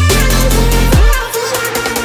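Electronic dance music with a heavy bass beat; a deep bass note slides down in pitch about a second in.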